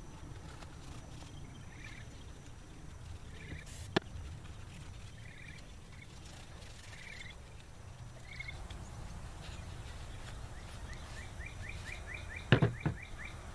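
Quiet outdoor background with a bird giving a short chirp about every second and a half and a quick run of rising chirps near the end. A sharp click about four seconds in and a few knocks near the end, the loudest sounds, come from a metal engine part being handled and wiped on a work table.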